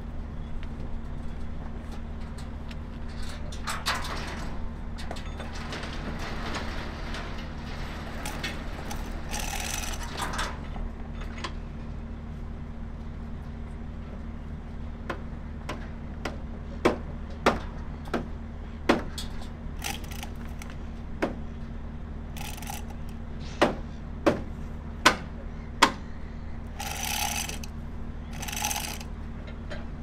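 Chain rattle and metal clanks from a funfair ride car being hung and fitted on a hand chain hoist, with a run of about eight sharp knocks in the second half, over a steady low hum.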